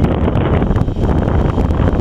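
Wind buffeting the camcorder microphone: a loud, steady low rumble.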